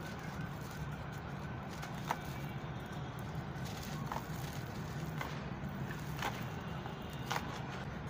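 A dry lump of packed grainy sand crumbled by hand into a metal basin: gritty crumbling and powder pouring, with a few sharp ticks of small pieces striking the basin, over a steady low background rumble.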